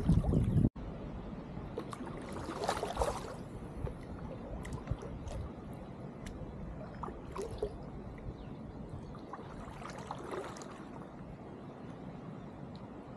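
Kayak paddle strokes in calm river water: a splash every few seconds as a blade dips and pulls, with water trickling and dripping off the blades and light water noise along the hull. Wind buffeting the microphone cuts off abruptly less than a second in.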